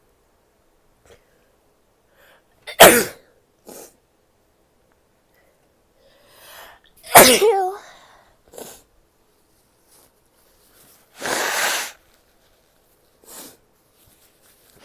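A woman sneezing twice, sharply, about three seconds in and again about seven seconds in; the second comes after a short breathy build-up and ends in a voiced cry. Faint sniffs come between them, and a short nose blow of under a second follows a few seconds later.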